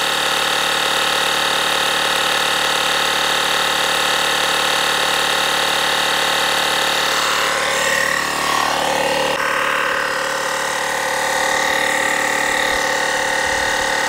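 MyTVS 3-in-1 12-volt portable tyre inflator running, its small electric piston compressor pumping air into a car tyre. It makes a steady, even machine hum.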